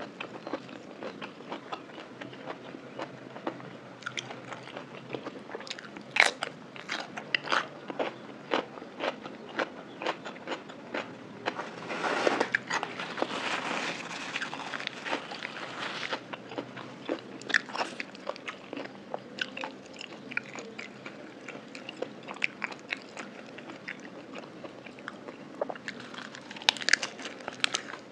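Close-miked eating of a spicy Thai lime salad with raw shrimp: sharp crunchy bites and wet chewing, many times over. A tissue rubs against the mouth for a few seconds in the middle.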